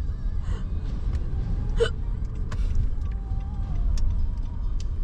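Low, steady rumble of a car's engine and tyres heard from inside the cabin as it drives. A short sharp sound stands out about two seconds in, and a few light clicks come after it.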